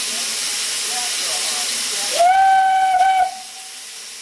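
Saddle-tank steam locomotive hissing steam, then sounding its steam whistle once for about a second, a little over two seconds in; the hiss stops as the whistle starts.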